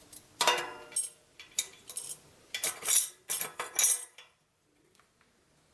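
Steel bicycle cassette cogs and spacers clinking against each other and the freehub splines as the new cassette is slid onto the freehub: a run of metallic clinks and clicks that stops about four seconds in.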